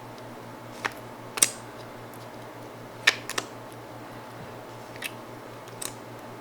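Several sharp clicks and pops scattered over a few seconds, the loudest about one and a half and three seconds in, over a steady low hum: clear slime being worked by hand with makeup mixed in.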